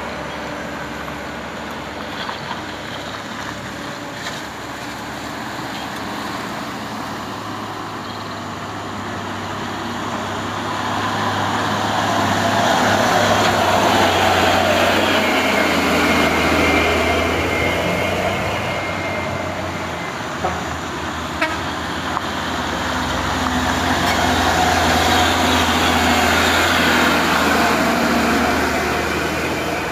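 Heavy diesel truck engine, a Mitsubishi Fuso 6x4 cement tanker, running slowly as the truck passes close by. The sound swells to its loudest about halfway through and again near the end.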